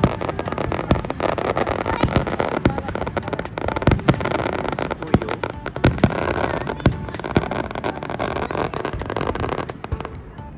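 Aerial fireworks going off repeatedly: many sharp bangs at irregular intervals over a dense crackling rush that fades away near the end.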